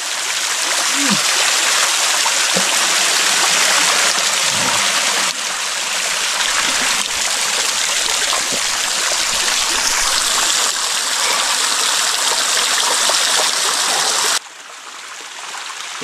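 Silver Streams waterfall's thin cascade pouring and splashing over a man standing beneath it, a steady loud rush of falling water close to the microphone. The rush drops to a much quieter flow about fourteen seconds in.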